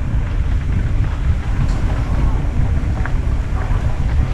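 Wind buffeting the microphone of a helmet-mounted camera on a moving mountain bike, a steady low rumble, with the bike's tyres rolling underneath.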